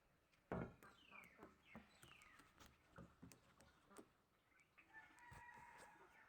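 Faint pet parrot calls: a few short falling squawks about a second in and a soft held whistle near the end, among light clicks and taps.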